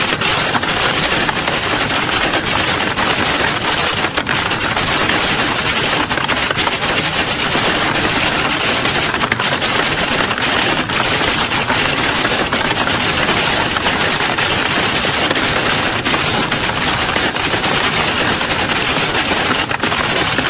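Many computer keyboards being typed on at once, a dense, continuous clatter of keystrokes with no pauses.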